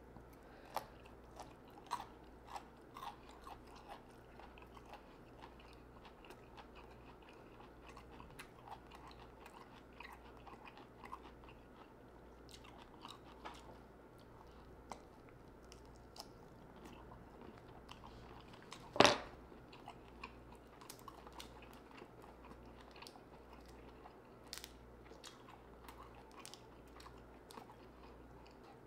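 Close-miked chewing of broccoli and sautéed shrimp: soft wet mouth smacks and small crunches scattered throughout, with one much louder sharp smack or click about 19 seconds in.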